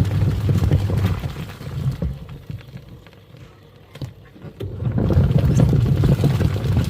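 A twin-tub washing machine's wash motor hums as the pulsator churns water. It winds down and stops for about three seconds, leaving only quieter water sloshing, then starts up again. This is the pause as the wash cycle reverses direction.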